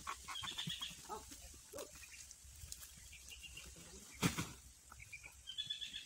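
Filled sacks of harvested corn being handled and loaded onto a wooden carabao cart: scattered knocks and rustles, with one loud thump about four seconds in. Short high chirps, like a bird's, come near the start and again near the end.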